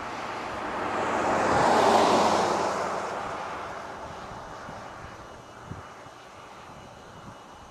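A vehicle passing on the highway: road noise swells to its loudest about two seconds in, then slowly fades away.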